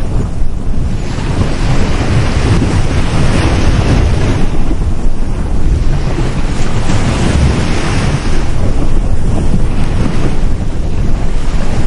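Sea waves breaking on a beach, the surf swelling and easing every few seconds, with a heavy low rumble of wind on the microphone.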